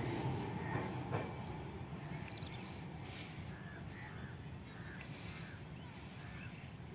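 Express train's rumble dying away as its last coach clears a steel girder bridge, with one more wheel clack about a second in. From about two seconds in, a bird calls several times in short calls over the fading rumble.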